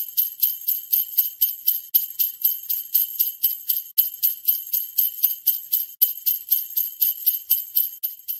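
Jingle bells shaken in a steady, even rhythm, about four shakes a second.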